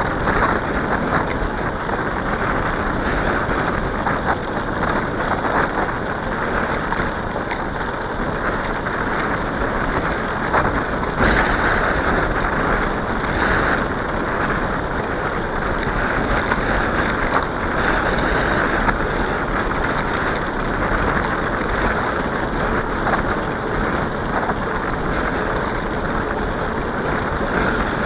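Steady rush of wind and rolling noise from a bicycle being ridden, with light ticking and rattling from the bike's mechanism throughout.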